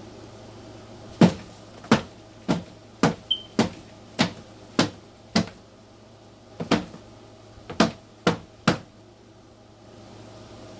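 About a dozen sharp knocks, irregular at one or two a second: cardboard egg crate being knocked against the colony's container to shake Dubia roaches off it.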